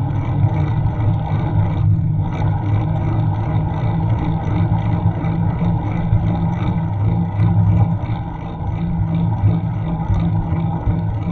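Steady, loud rumble of wind and road vibration on a bike-mounted action camera's microphone as the bicycle rolls along.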